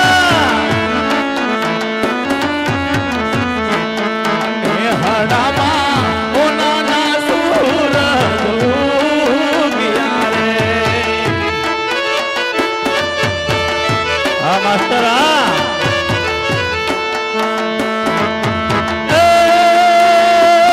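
Live Indian devotional folk music: a singer's wavering voice over steady held notes and hand-drum strokes. About 19 seconds in, the music gets louder on a long held note.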